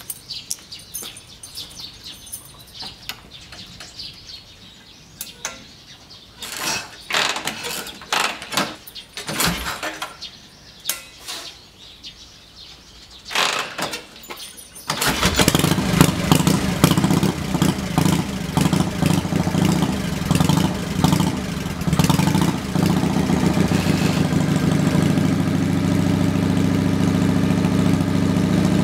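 Harley-Davidson Panhead V-twin with vintage mufflers: a few knocks and clanks from the kick-starter, then about halfway through the engine catches. It runs unevenly for several seconds, then settles into a steady, low, deep idle.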